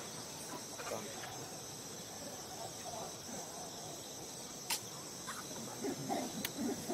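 Steady, high insect chorus of the forest undergrowth, with faint scattered chirps and two short sharp clicks in the second half.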